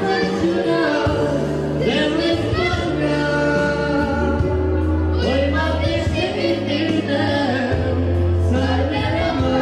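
A boy singing through a microphone, in phrases with a wavering vibrato, over a Yamaha Tyros arranger keyboard holding long bass notes beneath.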